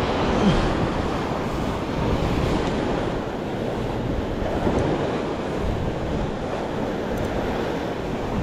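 Sea waves washing in, with wind blowing across the microphone.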